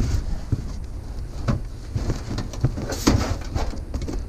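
Several short knocks and clunks of boxes and objects being handled and moved, the loudest about three seconds in, over a steady low rumble.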